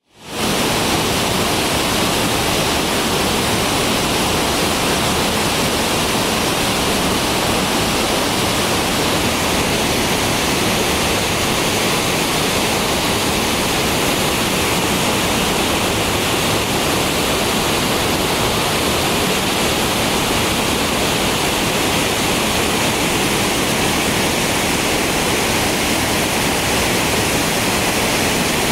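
Sengataki waterfall in the Shosenkyo gorge: a steady, loud rush of falling water that holds even throughout.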